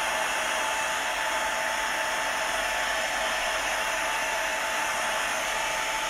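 Handheld hair dryer running steadily, a constant rush of blown air with a steady whine in it, used to dry paint on a wooden sign.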